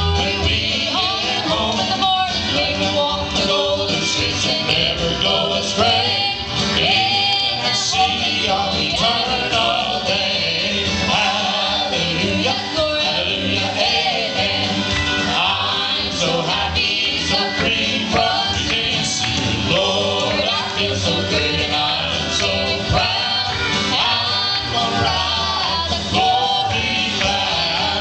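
A mixed gospel vocal group of men and women singing together into microphones over country-style instrumental accompaniment, the voices amplified through a sound system.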